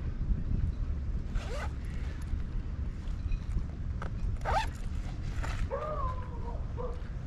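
Wind rumbling on the microphone, with a few brief swishes and a short two-note tonal call about six seconds in.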